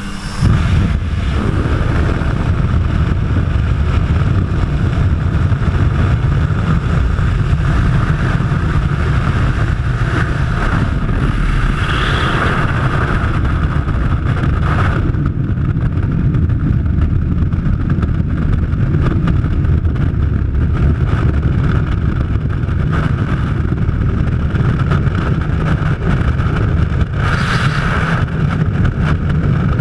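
Loud, steady roar of freefall wind rushing over a skydiver's helmet-camera microphone. Within the first second the aircraft's steady engine drone gives way to the wind.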